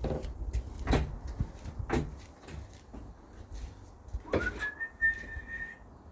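Knocks and clunks of tools and parts being handled on a workbench, about one a second, then a single whistled note that rises and holds for just over a second near the end.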